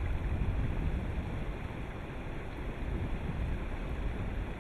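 Wind rushing over the microphone: a steady, rumbling noise.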